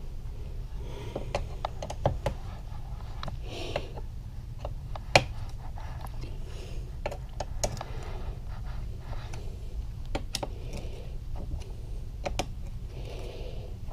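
Scattered light clicks and taps of small metal parts and hand tools being handled on a workbench, irregular and unrhythmic, over a steady low hum.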